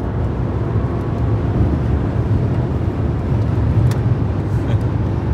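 Cabin noise of a BMW 760 at autobahn speed: a steady low drone from its V12 engine, held in fifth gear in manual mode, mixed with tyre and wind noise.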